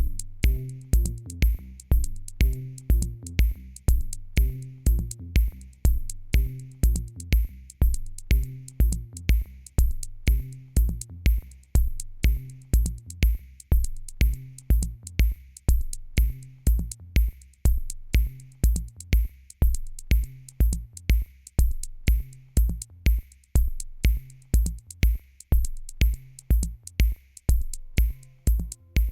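Electronic music with a steady drum-machine beat, about two low kick thumps a second under a bass line and short clicking hits.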